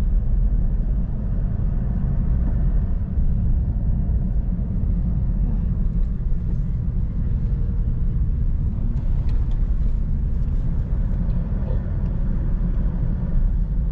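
Steady low rumble of a vehicle on the move, even and unbroken, with no distinct events.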